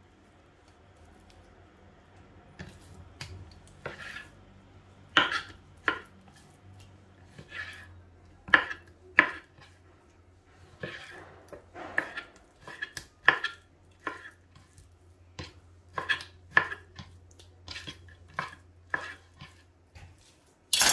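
Chef's knife cutting chicken breast into small cubes: irregular knocks of the blade, one or two a second, starting about two seconds in.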